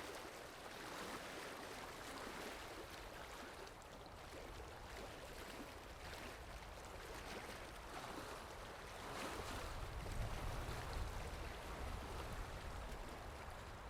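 Faint rushing of river water, with a low rumble that swells about nine seconds in.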